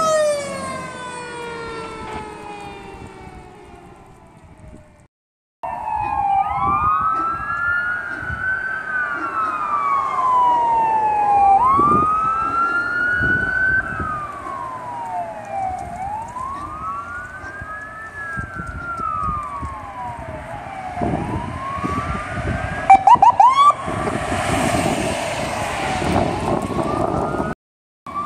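Fire apparatus electronic sirens. A siren winds down and fades over the first few seconds. After a brief cut, two sirens wail in slow overlapping rising-and-falling sweeps, break into a short burst of rapid yelp sweeps a little past two-thirds of the way through, and are then covered by a loud rush of noise under engine rumble.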